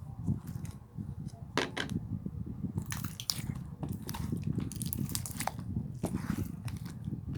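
Slime being squished and pressed by hand, giving many irregular sticky pops and clicks over a low handling rumble.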